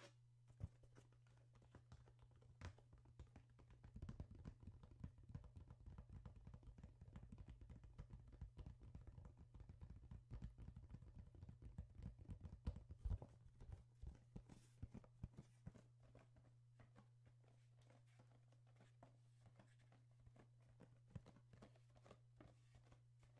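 Quiet, irregular soft taps and knocks, quick and clustered, densest from about four to fifteen seconds in and then sparse, over a faint steady low hum.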